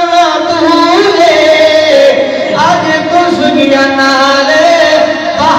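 Male voices chanting an Islamic devotional recitation (naat) in long, held melodic phrases that glide between notes, with short breaks between phrases.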